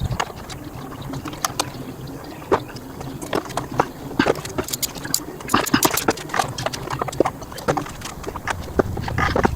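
Scattered light clicks and taps, irregular, sometimes several in quick succession, from handling a model aircraft on the bench.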